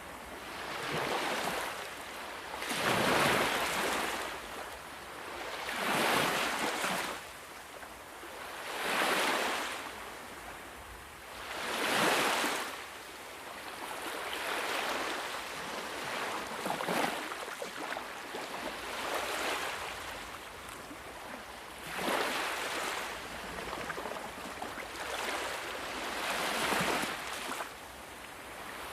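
Sea waves breaking and washing in, each one a rush of surf that swells and fades, coming about every three seconds and gentler through the middle.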